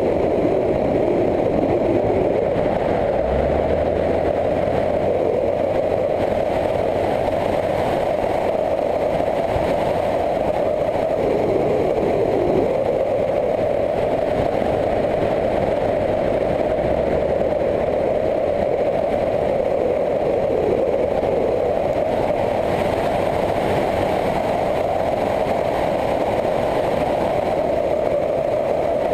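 Motorcycle riding at a steady cruise: an even rush of wind and engine noise on the onboard microphone, with a low engine drone that comes and goes.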